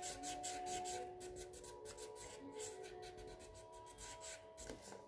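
Colouring on paper: a colouring tool scratched back and forth in rapid short strokes, fewer in the second half.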